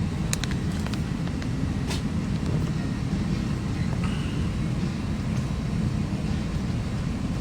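Steady low rumble inside a parked airliner's cabin, with a few light clicks in the first second and another about two seconds in.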